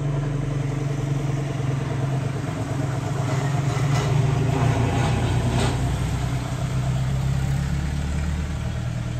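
A motor engine running steadily at low revs, growing a little louder for a couple of seconds in the middle.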